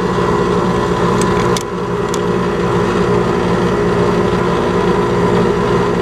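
Air conditioner's outdoor condensing unit running: a steady mechanical hum from the compressor and condenser fan, with a few light clicks between one and two seconds in.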